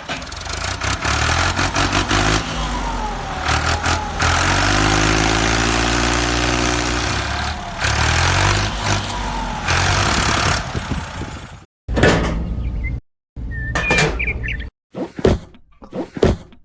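A small tractor engine running, with its pitch wavering up and down. It cuts off abruptly about twelve seconds in and is followed by several short knocks.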